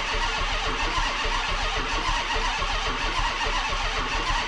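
Starter cranking a Dodge Charger police car's engine over steadily without it running on its own. The security light is blinking because the VIN has not been programmed, so the immobilizer is expected to keep it from starting.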